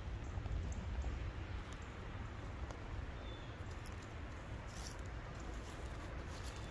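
Wind rumbling on the microphone, with faint rustling and a few small crackles from footsteps in dry leaf litter and twigs.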